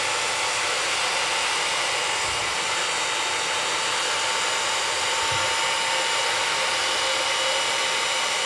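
Hot-air rework gun blowing steadily on its lowest airflow setting at about 290 °C: an even hiss with a faint steady whine. It is heating a plastic phone battery connector to melt its solder so it can be lifted off the board.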